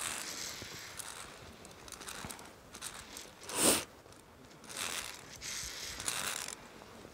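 Irregular rustling and scraping bursts of handling noise, the loudest about three and a half seconds in.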